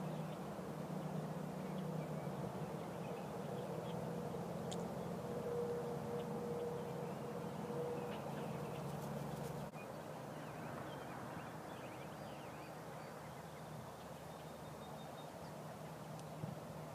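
Steady background noise with a low hum, and a few faint high chirps in the second half.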